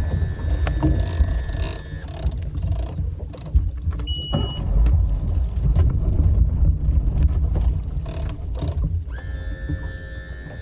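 Small boat underway: the outboard motor runs with a heavy low rumble and wind buffeting the microphone.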